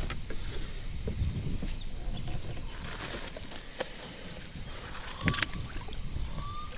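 Handling noise on a kayak: rustling and knocks as a bass is held and a plastic brag mat is unrolled, over low wind rumble on the microphone. There is a sharper clatter about five seconds in and a couple of short chirps near the end.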